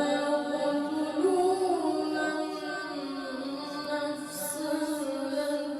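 A single voice reciting the Quran in melodic tajwid style, holding long, slowly wavering notes that climb briefly about a second in and then settle back.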